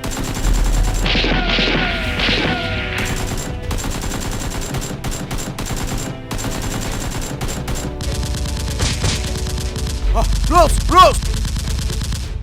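Rapid gunfire sound effects: dense, fast bursts of automatic fire, with a steady low drone underneath.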